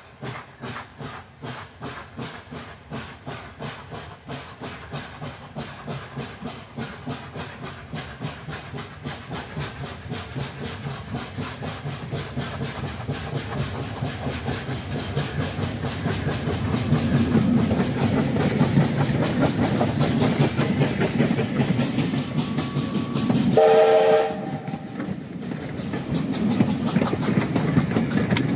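Steam locomotive working a train, its exhaust chuffs coming in a steady rhythm that quickens and grows louder as it approaches. About four seconds before the end it gives a short whistle blast of about a second.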